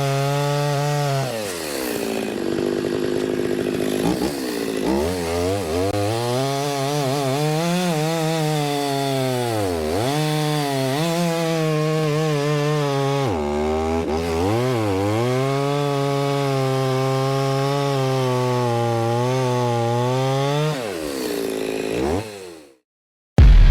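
Stihl two-stroke chainsaw bucking oak rounds. The engine pitch dips repeatedly as the chain bogs into the wood, then climbs back. It cuts off near the end.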